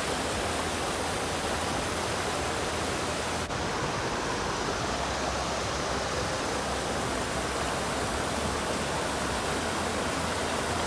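Waterfall, a steady, even rush of falling water.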